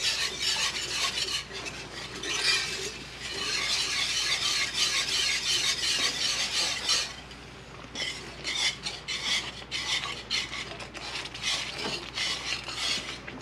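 Wire whisk stirring and scraping through milk gravy in a skillet, a continuous rasping swish as the milk is whisked into the roux. It eases off about seven seconds in, then comes back as quick separate strokes.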